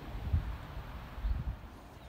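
Wind buffeting the microphone: a low, uneven rumble with two brief gusts, one about a third of a second in and one just past a second, fading toward the end.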